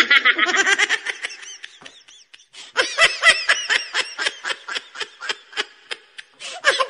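High-pitched laughter: a dense burst at the start, then a quick run of short 'ha' pulses, about four or five a second, from about three seconds in.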